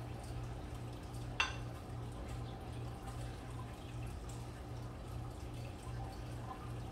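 A low steady hum that pulses about twice a second, under faint crackle. One sharp click comes about a second and a half in.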